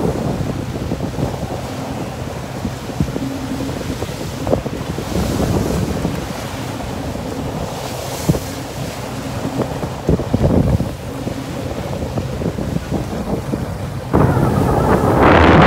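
Wind buffeting the microphone over the steady hum of a boat engine and waves slapping against the hull as the boat runs through choppy sea. About a second before the end, a much louder rush of wind hits the microphone.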